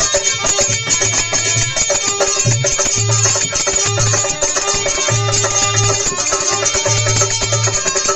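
Instrumental passage of Rajasthani folk bhajan music, with no singing. A hand drum plays a quick, steady rhythm with repeated deep strokes under sustained melodic tones.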